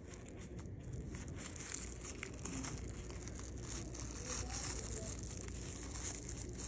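Grey plastic-bag strips of a coiled basket crinkling and rustling as a needle is worked under a loop and the strand is pulled through.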